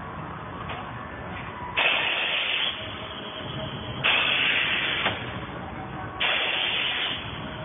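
Thomson clamshell die cutter running and cycling, with a hissing rush about a second long three times, roughly every two seconds, over the steady run of the press.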